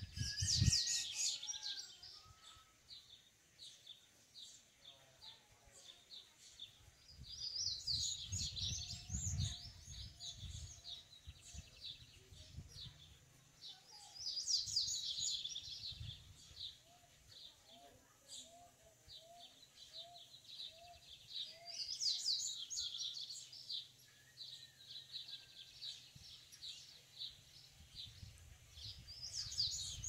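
Male papa-capim (yellow-bellied seedeater) singing: about five short bouts of fast, high twittering song, each a second or two long and several seconds apart.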